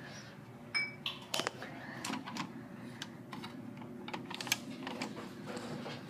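A run of irregular sharp clicks and taps at a programmable wall thermostat, over the steady low hum of central air conditioning running.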